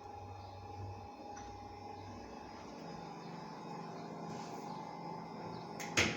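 Washing machine humming steadily, with a sharp click near the end. The machine is not filling with water because its water inlet is clogged with dirt and scale.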